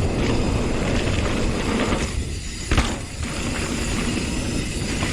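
Wind rushing over the microphone and a hardtail mountain bike's tyres and frame rattling down a dirt trail at speed. It goes briefly quieter about two seconds in, then a sharp clack just before three seconds.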